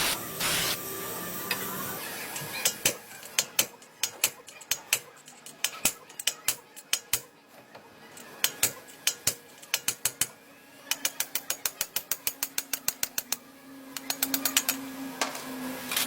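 A series of sharp mechanical clicks, irregular at first, then a fast even run of about six a second, then a few quick clusters near the end.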